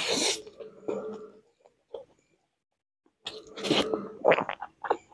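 Close-miked eating noises from a man eating rice and curry with his fingers. A sharp noisy burst at the start is followed by a few smaller mouth sounds, then a pause of nearly two seconds, then a busier run of short mouth noises in the last two seconds.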